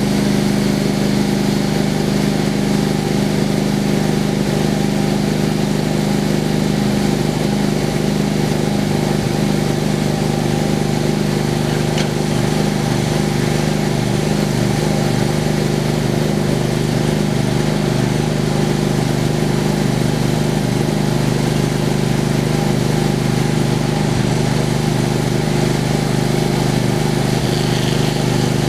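Engine of a homemade sawmill running steadily at constant speed.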